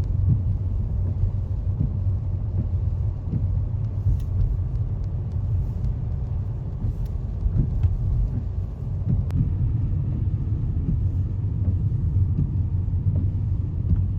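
A steady, loud low rumble with a few faint ticks over it.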